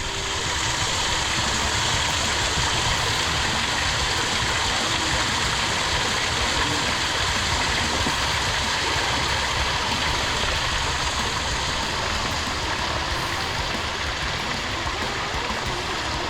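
Steady loud rushing noise, even and unbroken, starting abruptly as music cuts off.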